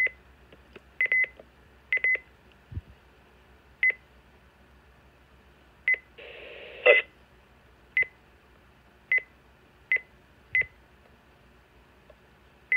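Midland WR-300 weather radio giving a short high beep for each keypad button pressed, about a dozen beeps at uneven intervals, with a brief buzzier tone about six seconds in.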